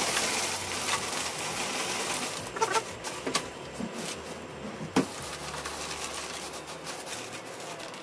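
Ice poured from a sack into a drum cooler: a continuous clattering rush for about two and a half seconds. It is followed by a few sharp clinks and crunches as the ice chunks are pushed level by hand.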